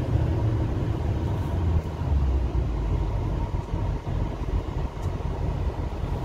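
Inside the cab of a 2010 Ford F350 Super Duty with its 6.4 L Power Stroke V8 turbodiesel under way: a steady low rumble of engine and road noise.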